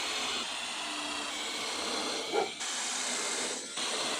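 Power drill driving screws into pallet wood, its motor running in long bursts with short stops about two and a half seconds and three and a half seconds in.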